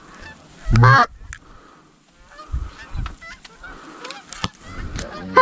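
A flock of Canada geese honking as they come in overhead, with one loud, close honk about a second in and many fainter, overlapping honks after it.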